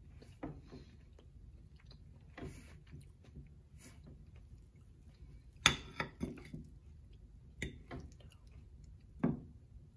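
Metal fork clinking and scraping on a plate as an omelette is cut, in scattered sharp knocks, the loudest about halfway through followed by a quick run of three, with quiet chewing between.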